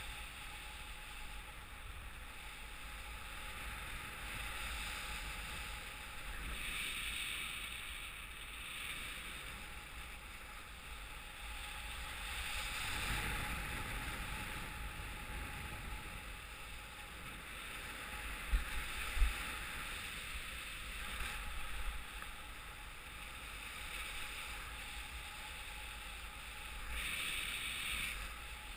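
Airflow rushing over the pilot-mounted camera's microphone in paraglider flight: an even hiss that swells and eases every several seconds, with a couple of brief low thumps of buffeting about two-thirds through.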